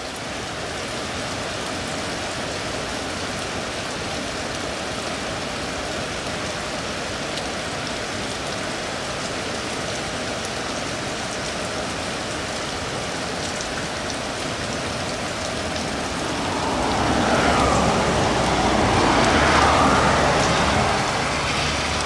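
Steady rain falling, an even hiss, growing louder near the end.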